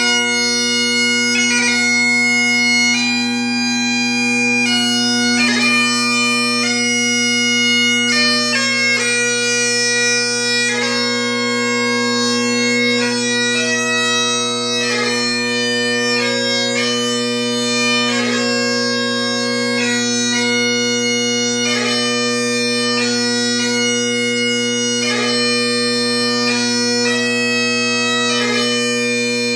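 Great Highland bagpipe playing a piobaireachd: the drones sound one steady note under the chanter's slow melody of long held notes, each change broken by quick grace notes.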